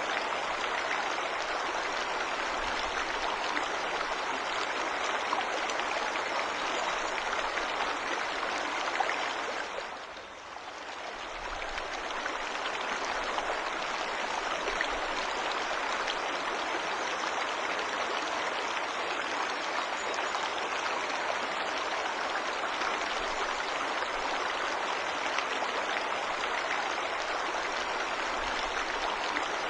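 Waterfall rushing steadily, an even wash of falling and running water. About ten seconds in it briefly fades lower, then swells back to the same level.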